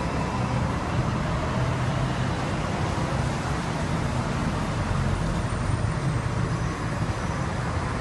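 Steady city street traffic noise, a low rumble of passing cars with no distinct events.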